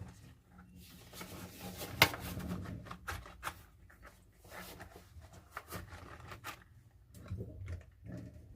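Dishes being handled and scrubbed at a sink: scattered clinks and knocks with scratchy rubbing between them, and one sharp clink about two seconds in.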